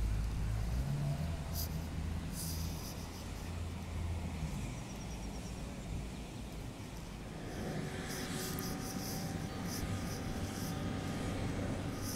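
Boat engines running with a steady low rumble; about halfway through a higher steady whine and some scattered clicks join in.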